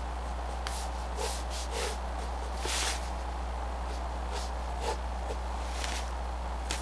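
Pencil sketching on paper: a handful of short, soft scratching strokes about a second apart, the loudest near three seconds in, over a steady low hum.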